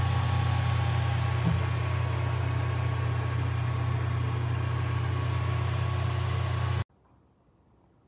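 Wall-plug ceramic fan heater running, a steady low fan-motor hum with a rush of air over it, which cuts off suddenly about seven seconds in.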